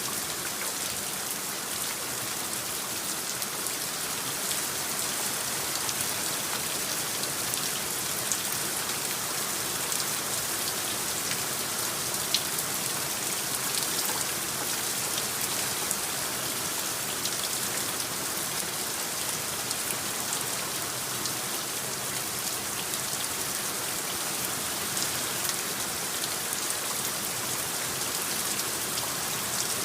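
Steady rain falling, an even hiss with scattered faint drop ticks, from a designed rain soundscape.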